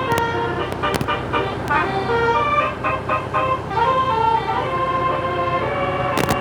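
Bus's 'telolet basuri' musical air horn playing a tune of held notes that step up and down in pitch, with a few sharp clicks between notes, over a steady low engine rumble.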